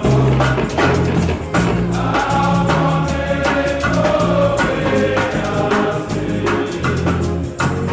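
Choir singing a gospel-style church hymn over a bass line and a steady percussion beat.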